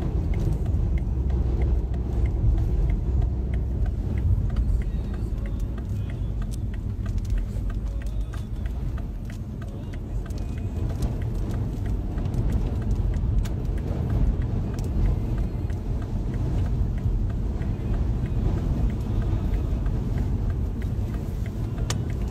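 Car driving, heard from inside the cabin: a steady low rumble with scattered light ticks against the body and glass.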